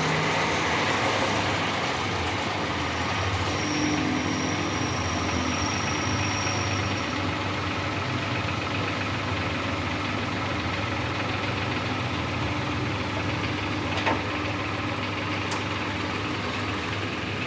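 Toyota Passo's 1.0-litre three-cylinder engine idling steadily on fresh 20W-50 oil, with a faint click about fourteen seconds in.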